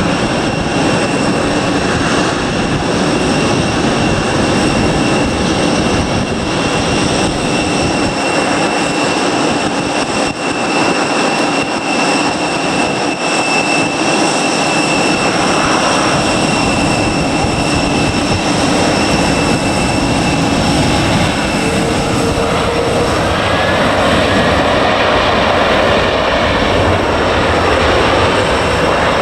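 Jet airliner engines running close by: a loud, steady rumble with a high whine held over it, the whine fading out about two-thirds of the way through.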